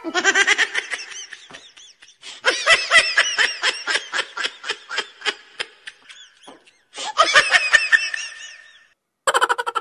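Laughter in several bursts of rapid, rhythmic ha-ha pulses, with short breaks between them. A fresh burst starts abruptly near the end.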